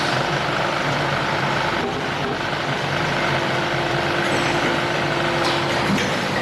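Rotor aluminium die-casting machine and its melting furnace running: a loud, steady machinery hum with a constant tone, with a few faint clicks.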